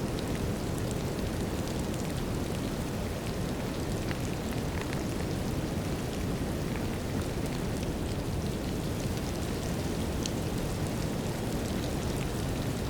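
Steady, deep brown noise mixed with light rain, with faint scattered raindrop ticks over it.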